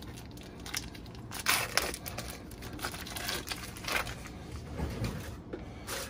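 Foil wrapper of a brick of Philadelphia cream cheese crinkling and tearing as it is opened, in irregular bursts, loudest about a second and a half in.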